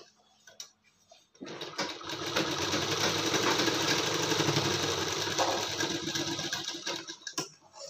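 Straight-stitch sewing machine running for about five seconds as it sews a dart into blouse fabric. It starts about a second and a half in, runs steadily, and stops near the end, followed by a light click.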